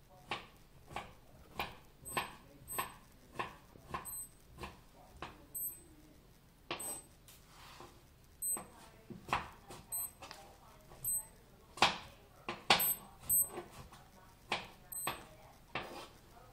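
Digital wristwatch beeping in short, very high chirps each time its button is pressed, about a dozen at uneven intervals. Between and over the beeps comes a run of short breathy puffs, the loudest ones near the middle.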